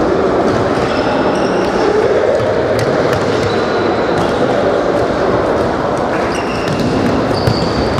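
Futsal play in a sports hall: the ball struck and bouncing on the court with scattered knocks, and shoes squeaking briefly on the hall floor several times, all echoing in the large hall.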